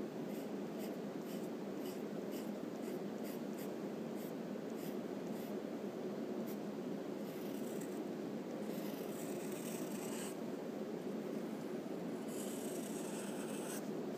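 Wooden graphite pencil drawing on paper: a run of short quick strokes, then longer scratchy strokes around the middle and again near the end. A steady low hum runs underneath.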